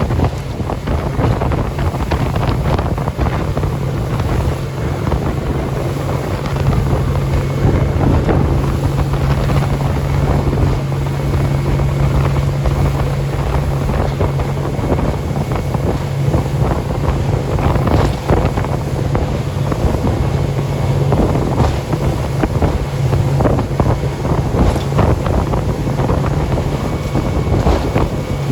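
Motorboat engine running steadily under way, a constant low hum, with wind buffeting the microphone.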